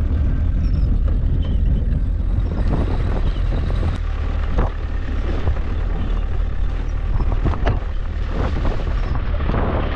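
Vehicle driving over a rough, muddy dirt track: a steady low rumble with many short knocks and rattles as it jolts over the ruts, and wind buffeting the microphone.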